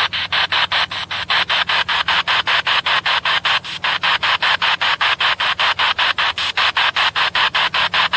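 Spirit box (ghost box) sweeping through radio stations: rapid, even chops of radio static, about five a second, over a faint steady hum.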